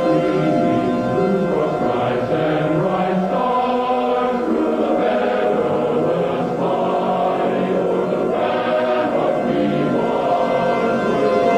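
Choral music: voices singing long sustained notes, changing pitch every second or two.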